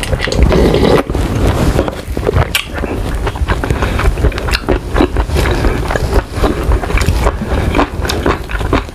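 Close-miked eating: wet chewing with many short sticky mouth clicks and smacks, over a low rumbling haze from the microphone.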